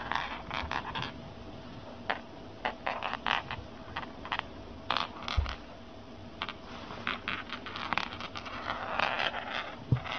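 A cat moving about inside a cloth tube on a wooden floor: irregular rustles of fabric, scrapes and sharp little clicks, over a faint steady hum.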